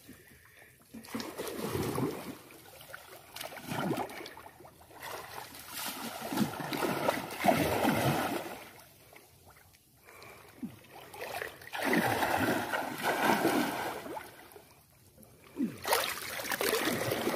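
Shallow water sloshing and splashing in four bouts with short pauses between them, from hands groping in the water for fish.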